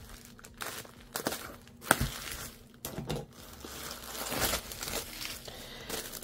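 Plastic bubble wrap crinkling and rustling in irregular crackles as it is pulled off a folded umbrella.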